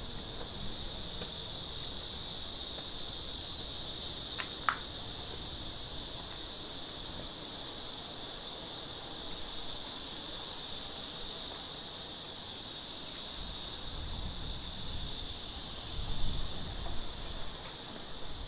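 A steady, high-pitched chorus of insects that swells louder twice, with one short high chirp about a quarter of the way in.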